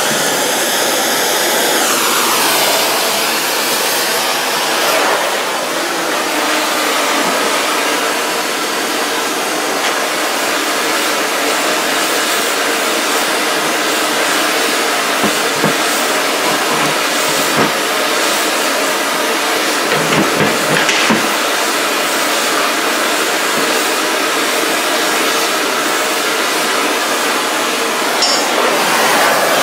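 Hand-held gas torch flame burning with a steady rush as it heats a cast iron exhaust manifold, keeping heat in the metal for a weld repair of a crack. A few short metal knocks sound about halfway through.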